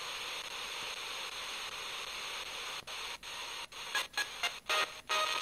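Tecsun portable radio hissing with FM static while being tuned between stations. From about three seconds in the hiss drops out briefly several times, and near the end choppy snatches of a station's audio break through as the dial nears a signal.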